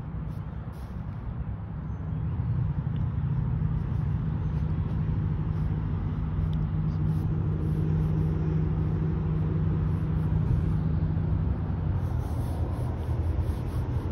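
A motor vehicle's engine running close by with a steady low hum, growing louder about two seconds in and easing off near the end.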